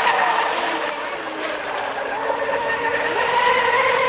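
Several electric radio-controlled racing boats running at speed: the high-pitched whine of their motors wavers in pitch over the hiss of spray, with a lower tone sliding down in the middle.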